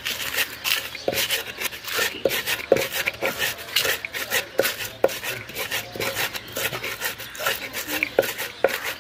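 Hand-held pestle crushing and rubbing garlic, dried red chillies and fish on a ridged grinding stone (shil-nora): repeated sharp knocks, about two to three a second, with gritty scraping between them.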